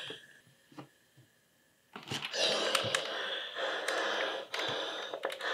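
Philips steam iron coming down on a folded knit neckband over a pressing ham about two seconds in: a hiss of steam, then the iron rubbing back and forth over the fabric with a few clicks and knocks as it is handled. The first two seconds are nearly silent apart from one click.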